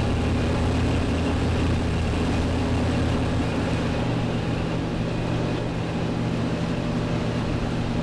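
A fishing work boat's engine running steadily under way, with the rush of its churning wake and wind.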